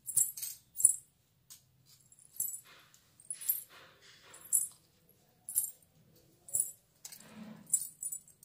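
Silver toe rings and anklets hung with small ghungroo bells jingling in short shakes as bare feet move, a quick cluster at first and then about once a second. A soft muffled bump comes near the end.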